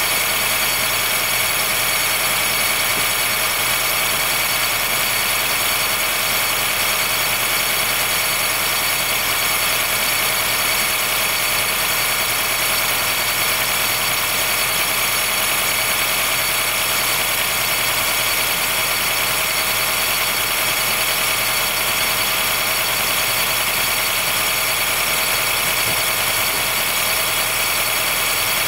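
Honda Fit Hybrid (GP5) powertrain running with a steady, high-pitched squealing whine over the engine hum. This is the cold-weather 'kiri-kiri, kii-kii' noise that appears below about 10 °C and stops once the car has warmed up.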